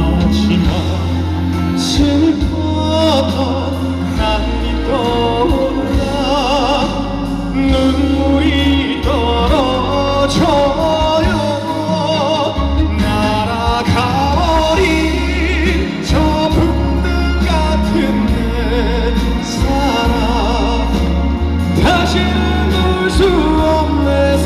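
Live trot ballad: a male voice singing with wide vibrato over a backing track with a steady bass, played through a concert PA.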